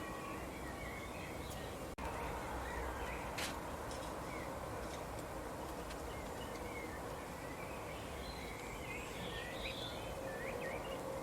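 Small songbirds chirping, short scattered calls over a steady outdoor background hiss, with a busier run of chirps near the end. A sharp click about three and a half seconds in.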